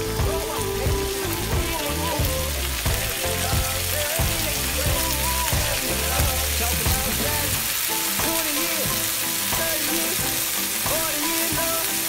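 Diced tomatoes and onions sizzling in hot oil in a frying pan, a steady crackling hiss, with background music playing underneath.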